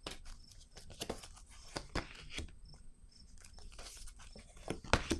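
A deck of oracle cards being shuffled and handled, a string of short card snaps and clicks with a sharper one near the end, and a card laid down on a wooden tabletop.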